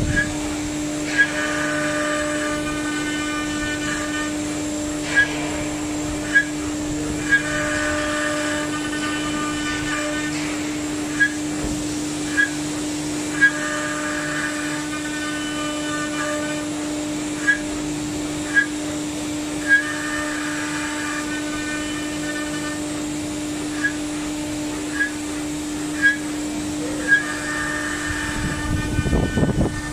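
CNC router spindle running with a steady whine while carving a relief pattern into a wood panel. The axis drives whine in stretches of a second or two as the head moves, with sharp ticks about every second and a rougher burst of noise near the end.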